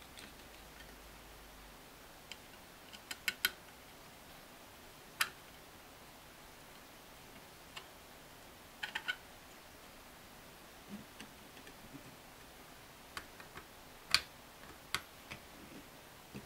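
Screwdriver tightening small screws into a sewing-machine foot controller: scattered faint metal clicks and taps, some in quick pairs or triplets, at irregular intervals.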